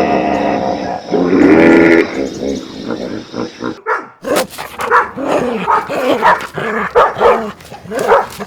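Dogs barking and yipping in quick repeated calls, several a second, from about four seconds in. Before that, a drawn-out pitched animal call ends and a second shorter call rises briefly.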